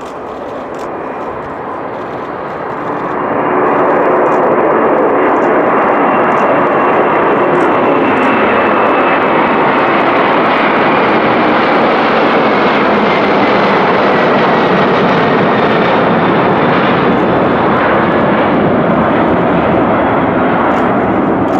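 Boeing 747-400's four jet engines at takeoff thrust: a loud, steady roar that swells over the first few seconds, with a high whine sliding down in pitch around the middle as the jet passes.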